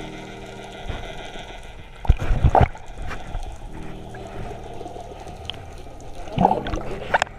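Water splashing and churning near an underwater camera as a diver fins at the surface, in two loud bursts, about two seconds in and again near the end, over a steady low hum of held tones.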